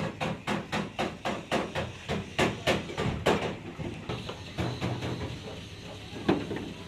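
Hammer blows on sheet metal, as in panel-beating a vehicle's dented body: a quick even run of strikes, about four a second, for the first three seconds or so, then slower scattered hits with one loud blow near the end.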